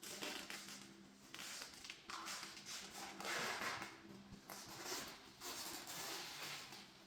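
Packing materials being handled: wrapping material rustling in irregular bursts, the loudest a little past the middle, over a faint steady hum.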